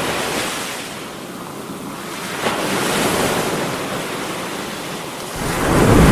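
Ocean surf: waves washing in and breaking in swells, with a louder surge near the end. Wind rumbles on the microphone during that last surge.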